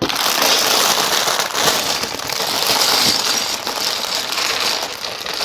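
A thin plastic LEGO parts bag being torn open, crinkled and emptied, with loose plastic pieces rattling inside it.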